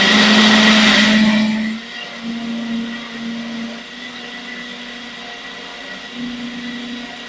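Kitchen blender running, blending tinned tomatoes with onion, garlic, ginger and chili into a sauce. It is loudest for the first two seconds or so, then drops to a quieter, steady motor sound.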